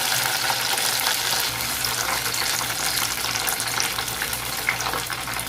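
Food frying in hot oil: a steady sizzle thick with small crackles.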